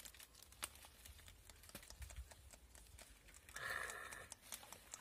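Faint crackling and snapping of dry reed stems as hands part and rummage in a mat of dead reeds, with scattered small clicks and a brief louder noise about three and a half seconds in.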